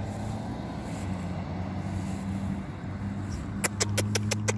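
A steady low hum, like an engine running, with a fast run of about ten sharp clicks near the end, roughly seven a second.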